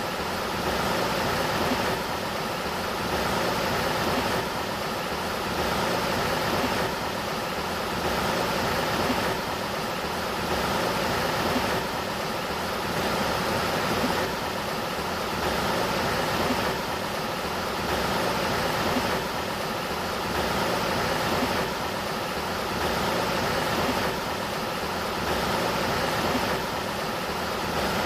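Sacramento River water rushing steadily, its level swelling and easing about every second and a half.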